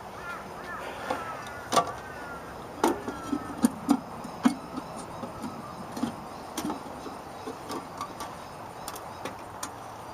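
Irregular sharp clicks and knocks from a street-light fitting being handled and worked on, with a few short squeaks in the first three seconds, over a steady background hiss.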